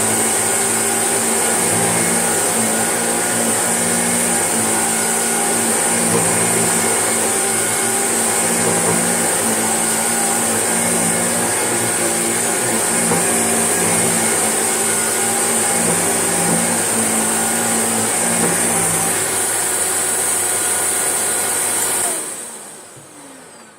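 Shark vacuum cleaner running steadily with a high whine and a low pulsing hum. It is switched off about 22 seconds in, and the motor winds down with falling pitch.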